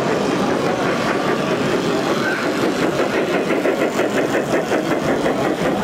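Large-scale model train running past close by, its wheels clicking evenly over the track with a low running hum, over a background of crowd chatter.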